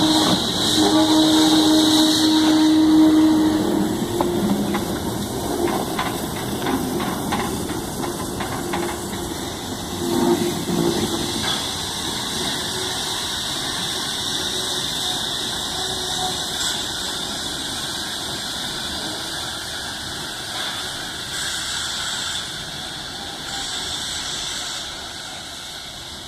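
Small steam tank locomotive pulling away with its train: the whistle sounds for about three seconds at the start and again briefly about ten seconds in, over a steady steam hiss and the clicks and clanks of the moving wagons. The sound slowly fades as the train draws away.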